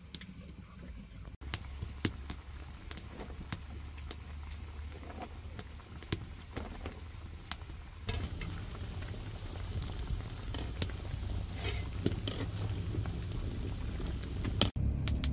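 Hot oil sizzling around round patties deep-frying in a wide metal pan over a wood fire, with frequent sharp pops and crackles and a low rumble underneath.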